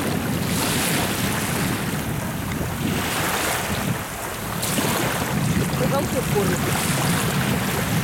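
Small river waves lapping and washing onto a sandy shore, a hissing wash every couple of seconds.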